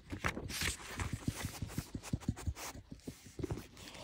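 A pet sniffing close to the microphone in a few short bursts, among many soft taps and knocks.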